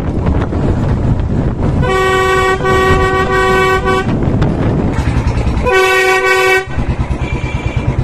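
Compressor-fed Hella air horn on a Royal Enfield Bullet blowing two long steady blasts, the first about two seconds long with a brief break, the second about a second, over the motorcycle's single-cylinder engine running underneath.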